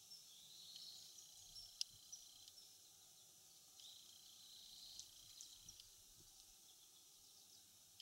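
Common kingfisher giving a few short, sharp, high-pitched single call notes, faint and spaced out, the strongest a little under two seconds in.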